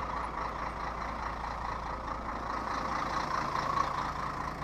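Heavy diesel truck engine running steadily at low revs.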